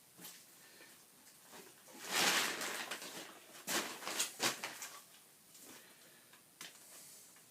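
Steel plastering trowel working setting plaster mix into a hole in a wall: a scrape about two seconds in, then a few short knocks and clicks of the trowel.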